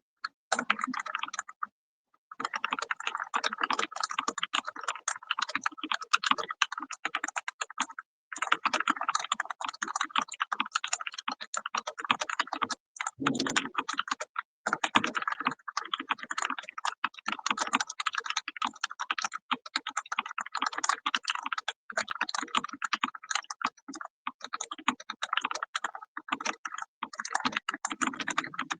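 Fast, continuous typing on a computer keyboard, a dense run of key clicks with a few brief pauses, at about 100 words per minute.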